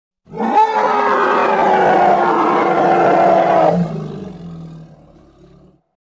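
Imagined Euoplocephalus (ankylosaur) roar sound effect: one long, loud roar of about three seconds that drops about three and a half seconds in to a quieter, lower sound that fades away.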